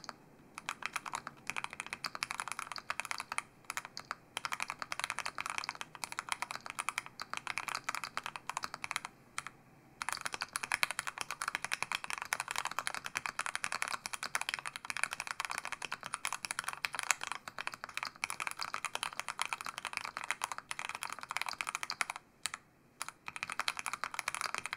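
Fast, continuous typing on a SAM S46 40% keyboard with stock Gateron Oil King linear switches, a POM plate and ePBT keycaps. The key clicks come densely, with a short break about ten seconds in and another near the end.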